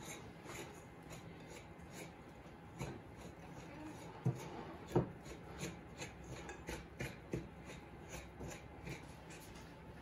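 Wooden spoon and hands working stiff cookie dough in a glass bowl: a steady scraping and rubbing with irregular light knocks, two louder ones about halfway through.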